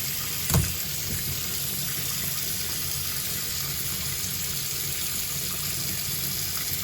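Tap water running steadily into a sink as fresh sardines are rinsed clean under it, with one short knock about half a second in.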